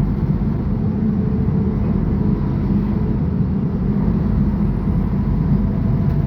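Mercedes-Benz O500UA articulated bus's diesel engine running steadily at an even speed, a deep, unchanging drone.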